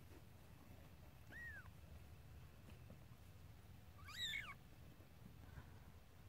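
Newborn kitten giving two short, high mews: a faint one about a second and a half in and a louder one about four seconds in, each rising and falling in pitch.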